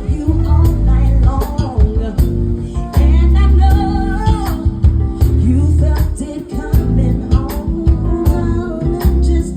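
Live soul/R&B band music: a singer's voice over guitar, bass and drums.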